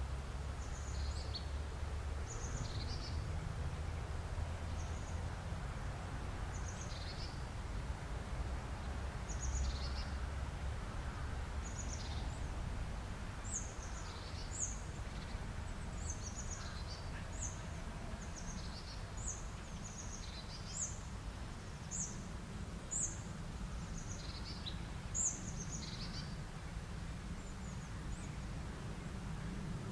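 Small birds' short, high chirps repeating, thicker from about halfway, over a steady low background rumble.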